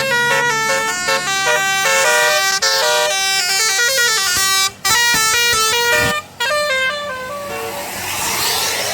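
Bus telolet horn, a musical multi-tone bus horn, playing a fast melody of quickly stepping notes with two short breaks. About seven seconds in the melody stops and a rushing noise takes over.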